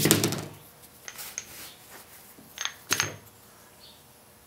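Hammer blows on a steel pipe driver seating a new seal in an SM465 transmission bearing retainer until it bottoms out, then a few light metallic clinks with a brief ring as the steel pipe is lifted off and set down on the bench.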